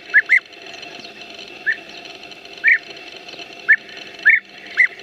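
A bird giving short, sharp chirps, about seven of them at uneven intervals, two in quick succession at the start, over a steady background hum.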